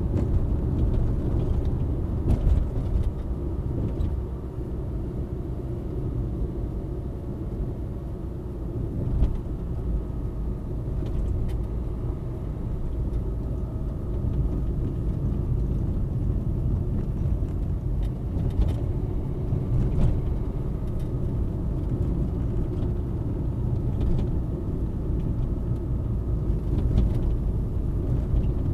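A car driving at about 45–50 km/h, heard from inside the cabin: steady low road and engine rumble, with scattered light clicks.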